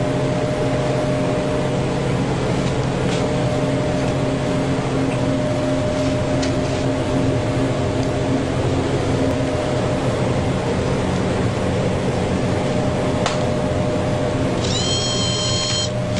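Vending machine humming steadily, with a few short clicks and, near the end, a high steady electronic tone lasting about a second and a half.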